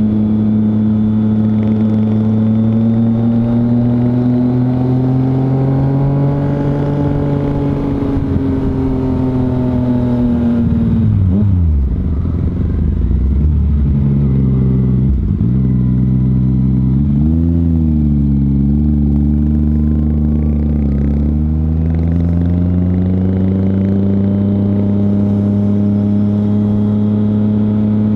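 Motorcycle engine running under the rider, steady at first, then its pitch falls steeply about eleven seconds in and dips again, before climbing back and holding steady to the end.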